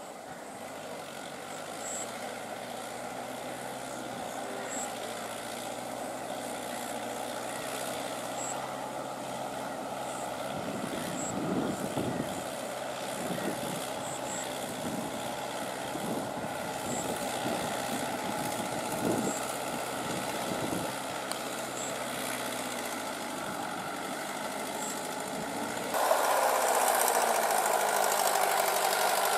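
Mahindra tractor's diesel engine running steadily under load as it drives through a flooded paddy field on iron cage wheels. In the middle the cage wheels churn and splash through the mud and water. Near the end the engine gets suddenly louder.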